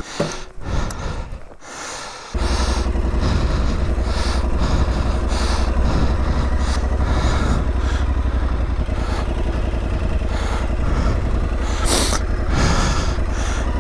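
Aprilia Tuareg 660's parallel-twin engine catching about two seconds in, then running steadily at low revs. A short hiss near the end.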